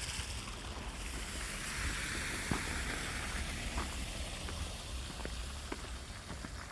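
Tyre hiss of traffic on a wet road after snow, swelling and fading over a steady low rumble, with a few light footsteps.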